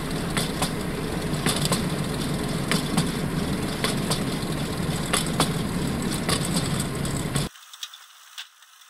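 A rail vehicle running along jointed track: a steady engine-and-wheel rumble with wheels clicking over the rail joints in pairs about once a second. It cuts off suddenly about seven and a half seconds in, leaving a faint hiss.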